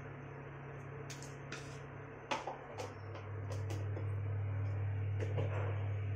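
Mustard oil heating in an aluminium pressure cooker over a gas burner: an even hiss under a steady low hum, with scattered faint crackles and ticks, the sharpest a little over two seconds in. The hum grows louder about three seconds in.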